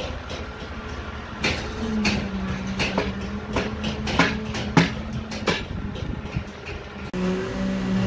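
Irregular metallic clanks and knocks, roughly one or two a second, from steel rebar and scaffolding being handled. A steady machine engine hum runs underneath and gets louder after a sudden change about seven seconds in.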